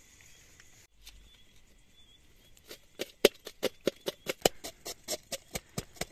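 Rapid, even chopping: the rim of a steel tumbler struck down through onions onto a steel plate, about five strokes a second, starting about halfway through.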